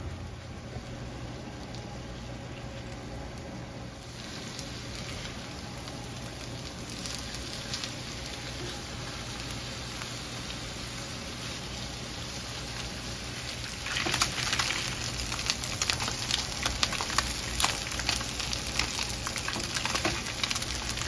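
Tilapia fillets frying in butter in a nonstick skillet, sizzling steadily. About two-thirds of the way through the sizzle grows louder and turns into dense crackling and popping.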